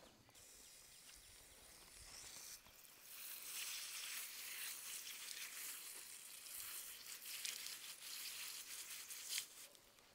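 Garden hose spray nozzle spraying water over a bunch of fresh greens held in the hand: a steady hiss that starts about three seconds in and stops shortly before the end.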